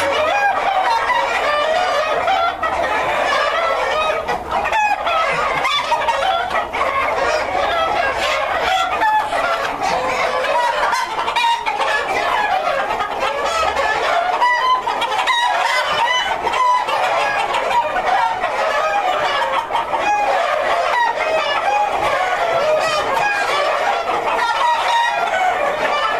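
A flock of Brown Leghorn hens and roosters clucking and calling over one another without a break, with roosters crowing among them.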